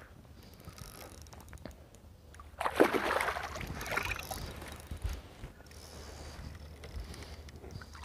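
Water splashing around a boat during a fish fight, with a louder burst about three seconds in that lasts a second or two, over a steady low hum.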